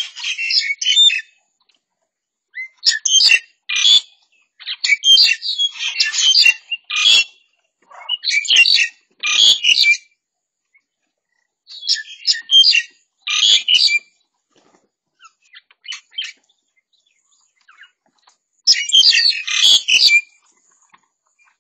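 A mixed flock of birds, many of them pied starlings, giving harsh, loud chattering calls in rushes of one to three seconds with short pauses between: birds squabbling and calling to assert themselves over one another at food.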